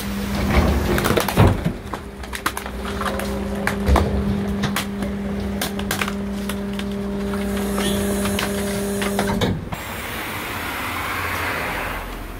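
Electric rear-loader garbage truck's packer compacting bagged trash in the hopper: a steady hum with knocks and crunches of bags and metal. The hum cuts off about nine and a half seconds in, and a softer rushing noise follows.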